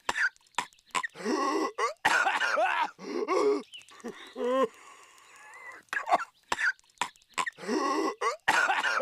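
A cartoon character's exaggerated, violent coughing fit: sharp hacking coughs broken up by strained, pitched vocal gasps. The same passage repeats about every six and a half seconds.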